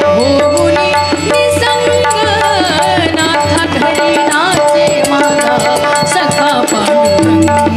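Instrumental interlude of a live Marathi bhajan: harmonium playing the melody over a steady rhythm on hand drums with small cymbals.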